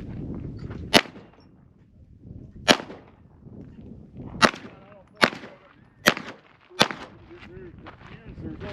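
Pistol shots, about seven single shots fired at an uneven pace, mostly around a second apart with a longer gap early on.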